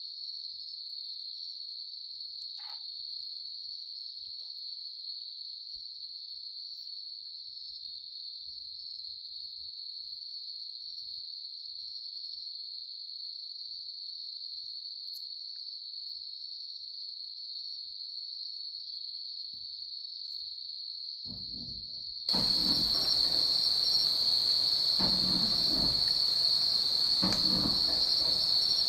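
Night insects trilling, one steady high-pitched drone. About three-quarters of the way through it abruptly gets louder, joined by rustling and scuffling noise.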